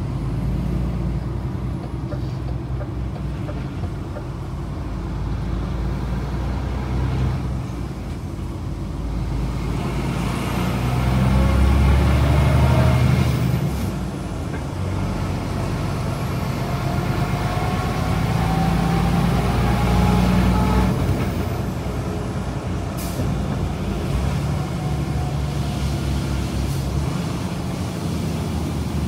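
DAF XF 106 truck's Paccar MX-13 six-cylinder diesel running under way with a steady low drone. It grows louder twice, with a slowly rising whine as it pulls.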